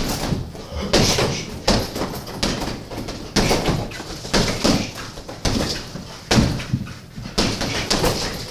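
Punches landing on a heavy bag about once a second, each thump paired with the boxer's sharp hissed "shh" exhale.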